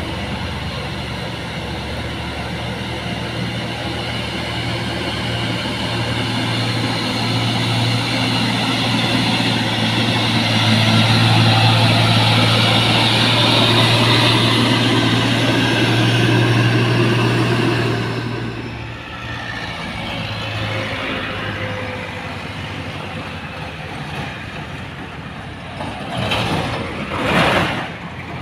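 A heavy cargo truck's diesel engine pulls up the grade, its steady drone growing louder as it passes close by, then fading. Near the end come two short, loud bursts of noise.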